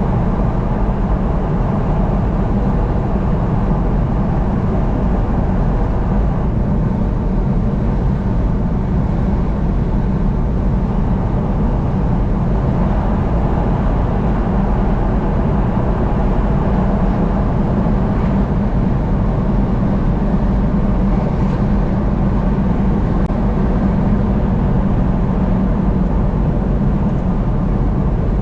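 Steady road and engine noise of a car driving at highway speed, an even rumble with no breaks or changes.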